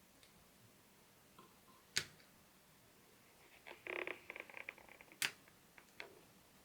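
Faint, separate sharp clicks and a brief rattle of small clicks from a precision screwdriver and a tiny screw being worked on inside a laptop.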